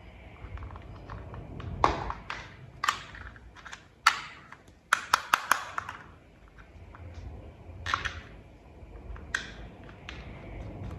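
Plastic toy vehicle parts clicking and snapping as they are handled and fitted together by hand: a string of separate sharp clicks, with several quick ones in a row about five seconds in.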